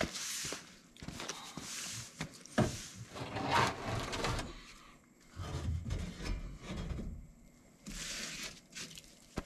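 A large sheet-metal hood being shoved and shifted against a steel generator enclosure: irregular scraping and shuffling handling noise, with a sharp knock about two and a half seconds in and another near the end.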